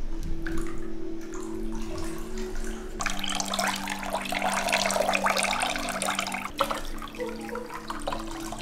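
Bathwater splashing and running in a bathtub as a small dog is hand-washed, loudest in a noisy stretch from about three to six and a half seconds in.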